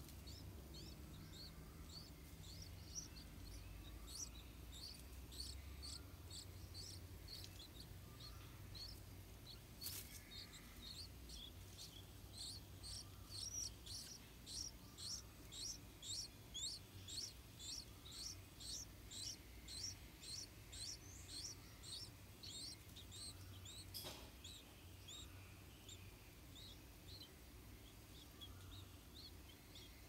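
Yellow-vented bulbul nestlings begging for food with a run of thin, high cheeps. The cheeps quicken and grow louder to about two a second through the middle, while a parent feeds the gaping chicks.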